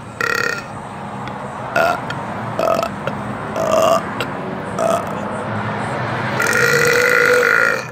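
A man burping repeatedly on purpose: five or so short burps, then one long, drawn-out burp lasting about a second and a half near the end.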